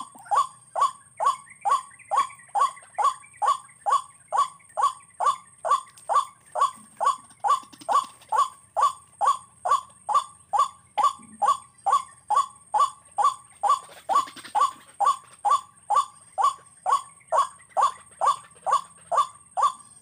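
White-breasted waterhen (ruak-ruak) calls: a monotonous, evenly spaced 'wak' note repeated a little over twice a second, each note dropping in pitch. A faint steady high whine sits underneath.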